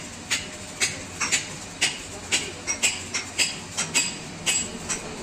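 Hammer striking metal repeatedly, about two to three blows a second, in work on a concrete mixer.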